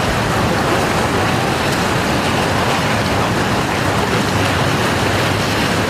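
Fast-flowing river current rushing steadily past, a loud even noise with no breaks.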